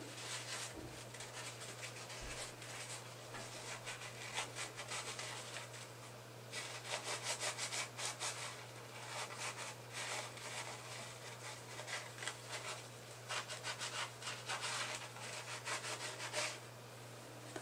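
Paper towel rubbing back and forth over a small 3D-printed plastic trigger part in quick strokes, wiping lubricating oil onto it. The rubbing pauses briefly about six seconds in and stops near the end.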